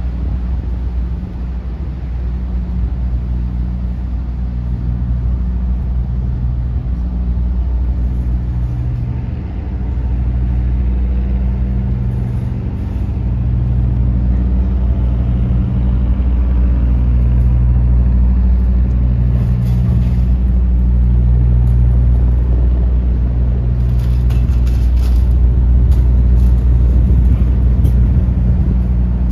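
A low engine drone that throbs about once every second and a half, under a heavy rumble of wind on the microphone.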